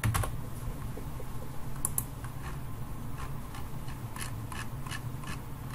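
Scattered computer keyboard keystrokes: a few sharp clicks, sparse at first and coming more often after about two seconds, over a low steady hum.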